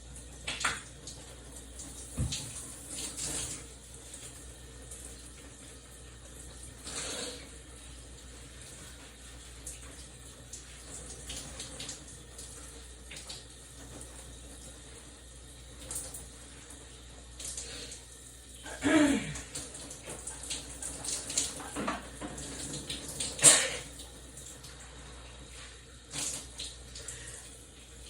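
Shower water running steadily, with scattered short sharp sounds over it: a brief sound sliding down in pitch about nineteen seconds in, and the loudest, a sharp burst, a few seconds later.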